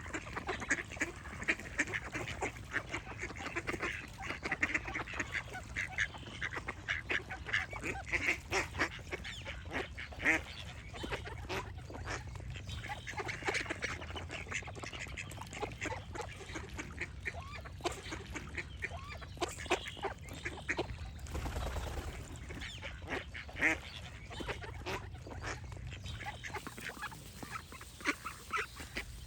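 A flock of ducks quacking in a busy, continual chatter of short calls, one over another.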